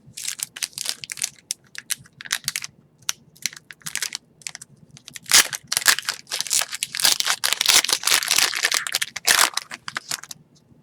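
Wrapper of an Upper Deck hockey card pack crinkling and tearing as it is opened by hand: scattered crackles, then a dense stretch of crinkling from about five seconds in to near the end.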